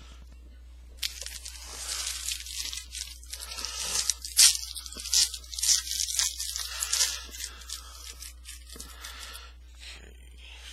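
Foil trading-card pack wrapper being torn open and crinkled, a crackly run of tearing and crumpling lasting several seconds, loudest in the middle.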